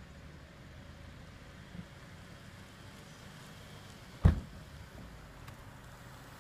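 Honda Civic sedan idling with a low, steady hum, broken by one loud, sharp thump about four seconds in.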